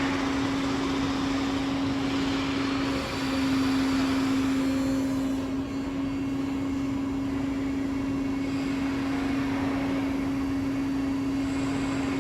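Rafamet UBC 150 CNC wheel lathe running: a steady machine drone with one strong, constant hum tone, a little louder for a couple of seconds a few seconds in.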